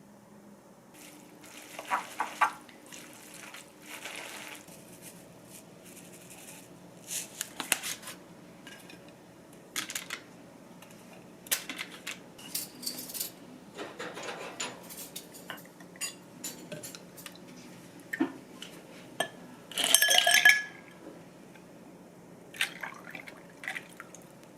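Kitchen clatter: dishes and utensils knocking and clinking in irregular short hits, with one louder ringing clink about twenty seconds in.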